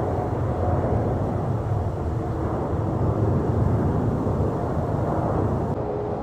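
Boeing 737-900ER jet engines giving a steady low rumble with faint whining tones.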